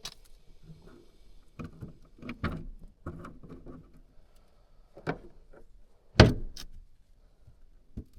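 Irregular knocks, clunks and rustling from tools and parts being handled while working on furnace wiring, with one loud thud about six seconds in.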